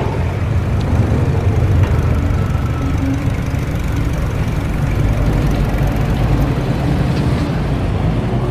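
Street traffic with motor car engines running, a steady low rumble.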